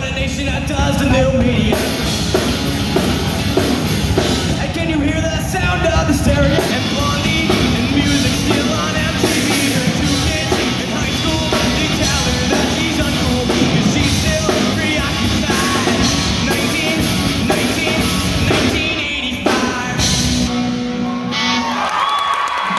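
Live rock band playing: electric guitars, bass guitar and drum kit with a lead singer. The music thins out shortly before the end.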